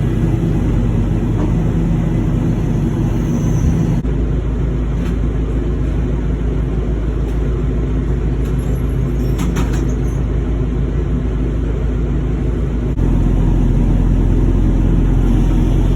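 Heavy machine's engine running steadily with a low rumble, changing in pitch and level abruptly about four seconds in and again near the end. A few faint metallic clicks come about two-thirds of the way through.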